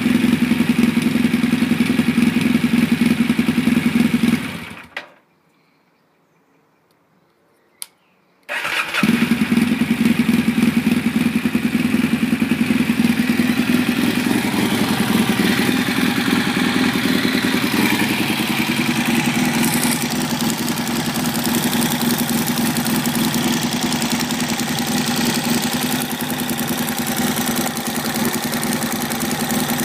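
Yamaha XTZ750 Super Ténéré parallel-twin engine idling through an aftermarket GPR exhaust. It stops about four and a half seconds in, a single click follows about three seconds later, and then the engine restarts and settles into a steady idle.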